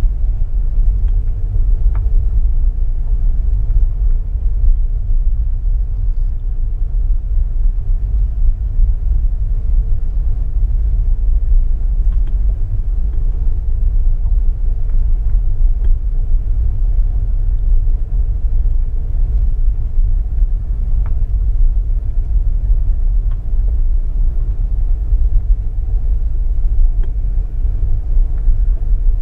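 Car being driven at steady speed, heard from inside the cabin: a continuous low rumble of road and engine noise with a faint steady hum and a few light ticks.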